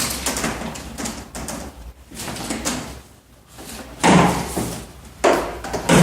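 Knocks and clatter from hand work on heating pipes and manifold fittings, with two louder bangs about four and five seconds in.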